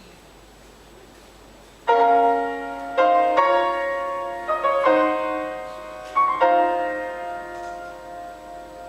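Piano playing slow chords that begin about two seconds in, after a quiet start; each chord is struck and left to ring and fade before the next.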